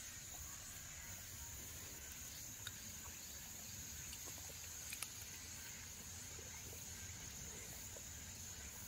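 Steady high-pitched insect buzz, with two faint clicks, about three and five seconds in, as a dog chews cherry tomatoes.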